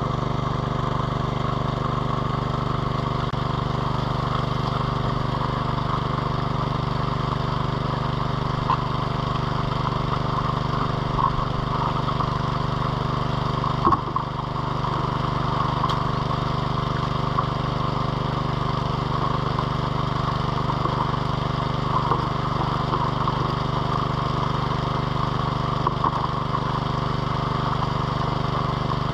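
Small petrol water pump engine running at a steady speed, pumping water to a high banker sluice. One short knock about fourteen seconds in.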